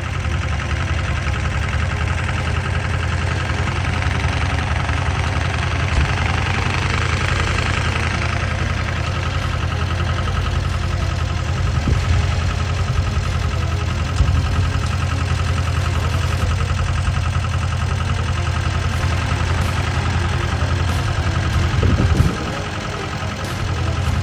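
Single-cylinder diesel engine of a patpat farm vehicle running steadily with its rapid knocking beat; the engine sound dips briefly near the end.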